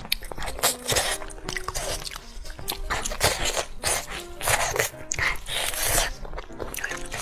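Close-miked eating: bites into sticky glazed meat and chewing, an irregular run of crackly, wet mouth noises, heaviest in the middle. Background music with a simple melody plays underneath.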